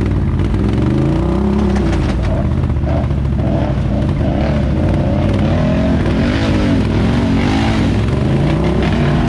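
Off-road vehicle engine revving up and down again and again, its pitch rising and falling several times in quick succession, most often in the second half.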